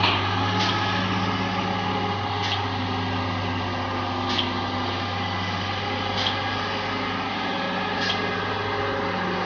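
Diesel engine of a multi-axle box-girder transporter running steadily as it crawls past loaded with a concrete box girder, with a faint short high click about every two seconds.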